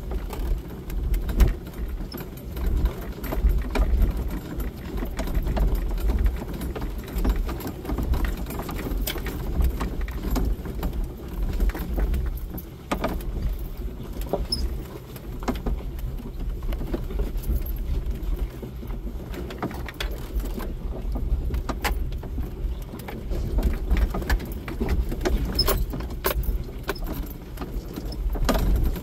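Jeep Wrangler creeping over a rocky dirt trail, heard from inside the cab. A steady low engine hum runs with frequent sharp clicks and light rattling from the jolting vehicle and the stones under the tyres.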